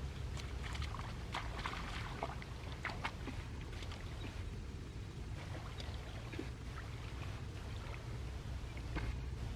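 Shallow water splashing and sloshing in irregular bursts, busiest in the first three seconds, over a steady low hum.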